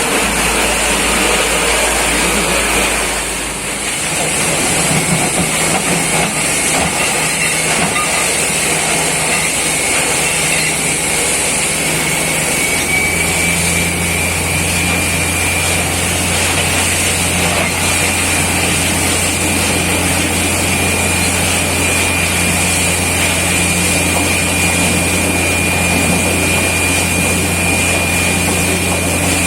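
Borewell drilling rig running steadily and loudly, with a hiss and a thin high whine that creeps slowly up in pitch. The level dips briefly about three and a half seconds in.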